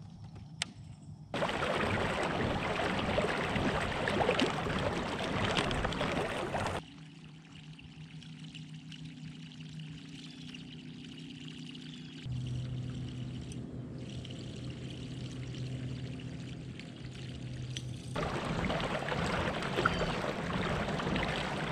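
Water rushing and splashing along a moving kayak's hull, in two loud spans that start and stop abruptly. The quieter stretch between them holds a steady low hum.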